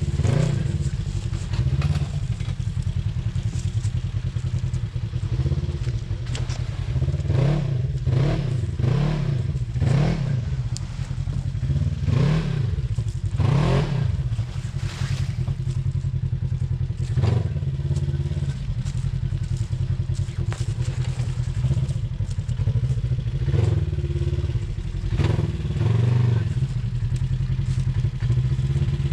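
Off-road vehicle engine running steadily and revving up and back down again and again, with several rev bursts close together in the middle and a few more later.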